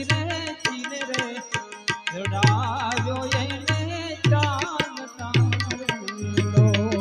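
Instrumental break in a Gujarati folk song: a hand-drum beat with deep bass strokes and sharp clicks, under a melody instrument playing a wavering tune that is most prominent a couple of seconds in.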